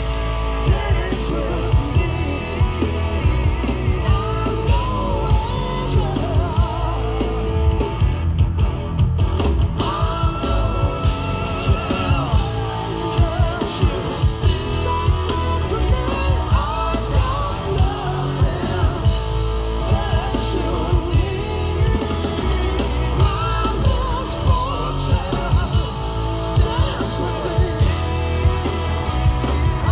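Rock power trio playing live through a large PA: male lead vocals over electric guitar, bass guitar and a steady drum beat.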